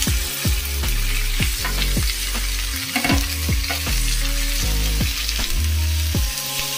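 Raw chicken pieces sizzling in hot oil with chopped onions in a non-stick wok, while a silicone spatula stirs and turns them: a steady frying sizzle with repeated stirring strokes.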